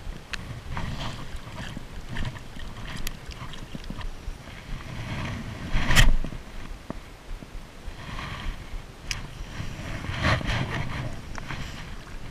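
Wind buffeting a body-worn camera microphone, with rustling of a waterproof jacket and scattered small clicks. A louder brush about six seconds in as the jacket sleeve sweeps across the microphone.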